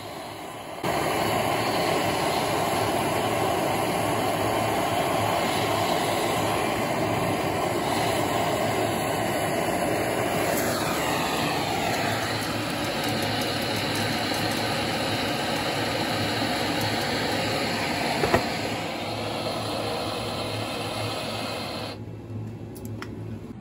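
Gas blowtorch running steadily, heating a steel cutting tool to bright orange in a firebrick hearth for hardening. The torch starts about a second in and cuts off suddenly near the end.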